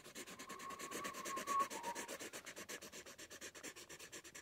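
Felt-tip Sharpie marker scratching across paper in rapid, even back-and-forth hatching strokes. A faint high tone is heard briefly about a second in.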